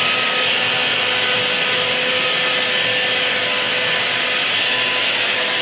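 Handheld hair dryer running steadily, blowing heat onto a wig as it is styled.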